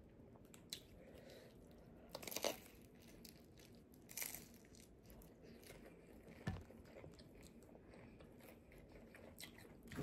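Quiet eating sounds: a crispy fried egg roll being broken apart with a fork and bitten, with a handful of short, separate crunches.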